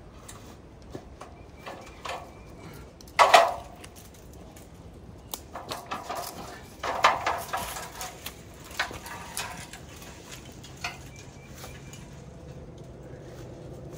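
Aluminum extension ladder clanking and rattling as it is lifted off the ground and stood upright, with one loud clank about three seconds in and a run of rattles around seven seconds.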